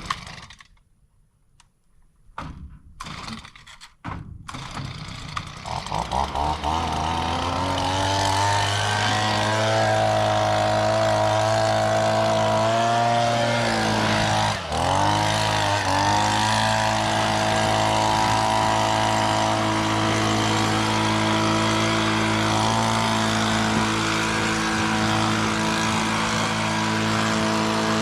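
A farm machine's diesel engine starts after a few clicks, rises in pitch over a few seconds as it revs up, then runs steadily at high speed, with a brief dip in pitch about halfway through.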